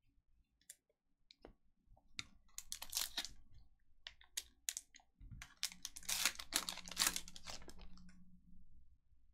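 Trading cards and their foil pack wrapper being handled: a run of crinkling, rustling and clicking, heaviest about three seconds in and again from about six to eight seconds.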